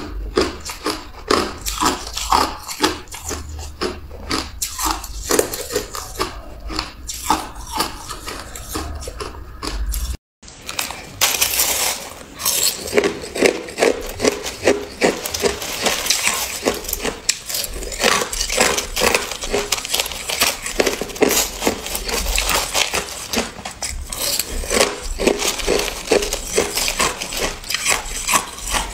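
Ice crunched between the teeth close to the microphone in quick, irregular bites: chunks of hard ice first, then, after a brief silent cut about ten seconds in, mouthfuls of crushed ice eaten from a spoon.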